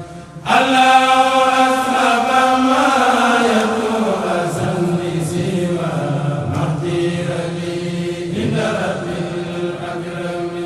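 A kourel, a group of voices, chanting a Mouride xassida in unison without instruments, in long held, drawn-out notes. After a brief breath pause at the very start the voices come back in together, and about four seconds in the melody slides slowly down.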